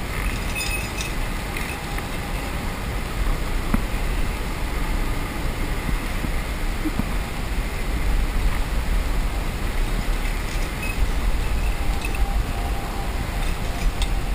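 Steady rushing outdoor noise with a heavy low rumble and no clear separate events.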